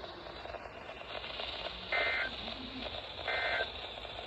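Two short bursts of NOAA Weather Radio SAME digital data tones, a harsh buzzing warble, about two and three seconds in and spaced about a second and a half apart, over faint radio hiss. They are the Specific Area Message Encoding code that marks a weather-radio test.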